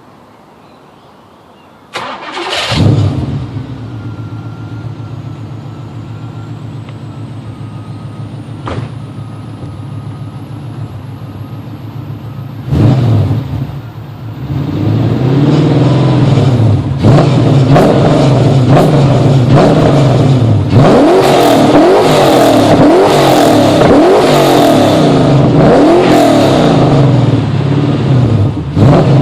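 Nissan VH45DE 4.5-litre V8 with a full exhaust, starting about two seconds in and settling into a steady idle. About ten seconds later it is blipped once, then revved again and again, the pitch rising and falling with each rev, and it drops back near the end.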